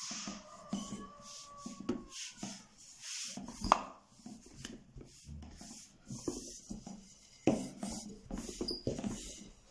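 Long, thin wooden rolling pin (oklava) rolling and rubbing back and forth over a floured sheet of börek dough wound around it, on a wooden board, in repeated short strokes. There are a couple of sharper knocks of the pin against the board.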